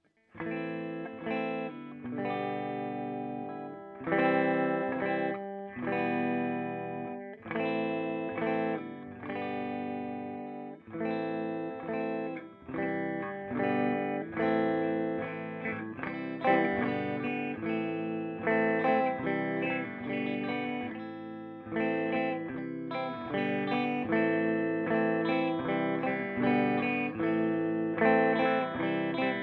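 Electric guitar played through the clean channel of a Peavey Bandit 112 combo amp and its 12-inch Blue Marvel speaker. Ringing chords start about half a second in and are struck every second or two.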